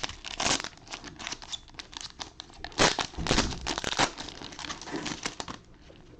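Plastic wrapping on a sealed trading card box crinkling and tearing as it is opened by hand, in irregular bursts of crackling.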